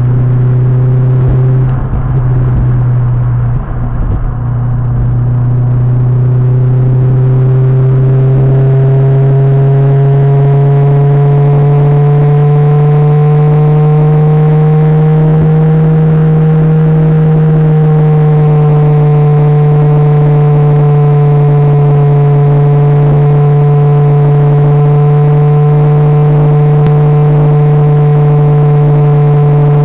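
Honda S2000's four-cylinder engine droning steadily at cruising speed, heard inside the cabin with road and wind noise. Its pitch rises slowly for several seconds and then holds level, with a few low bumps in the first seconds.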